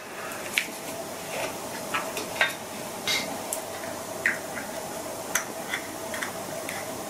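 Irregular small clicks and taps from handling a Baader Hyperion 8-24mm Mark IV zoom eyepiece, as it is turned over in the hands and its eyepiece-end parts are worked.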